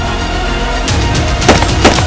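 Background music with two semi-automatic M16-style rifle shots about a third of a second apart, about one and a half seconds in.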